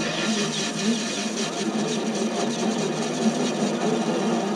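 Chinese mini lathe running, its parting tool resting in the cut, with a fast, light ticking from the tool over the steady hum of the motor and gears.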